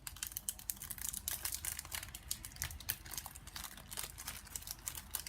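Trading-card pack wrapper crinkling as it is handled and torn open, a dense run of small crackles.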